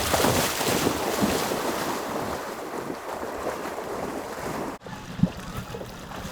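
Rushing splashing of something moving through shallow water, broken off abruptly about five seconds in, followed by a single dull thump.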